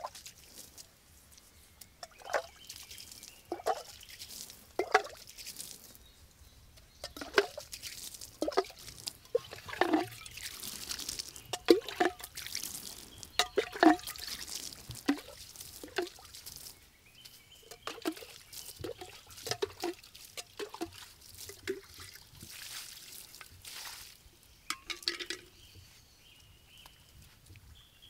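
Leafy green stems being snapped off by hand: short, crisp, wet-sounding pops at irregular intervals, about one a second, thickest in the middle stretch and thinning out near the end.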